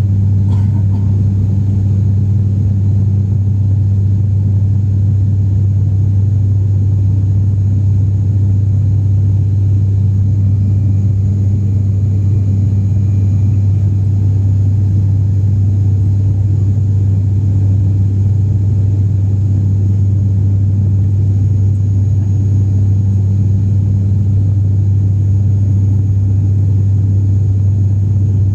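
Airliner cabin noise during the climb after takeoff: the engines' steady low drone with a constant deep hum and rumble, unchanging throughout.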